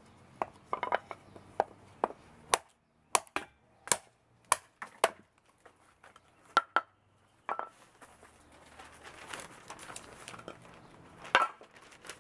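A 1095 carbon-steel chopper blade, 3/16 in thick and hardened to 64 HRC, chopping into an oak board with sharp, separate strikes, one to two a second. After a pause the blade lands one last loud strike near the end.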